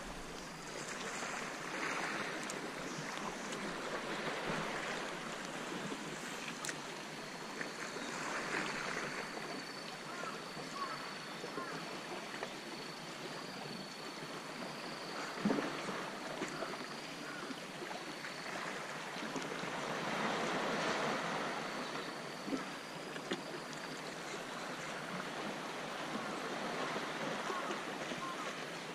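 Small sea waves washing against the rocks, swelling and easing every few seconds, with a couple of light knocks and a faint steady high tone through the middle.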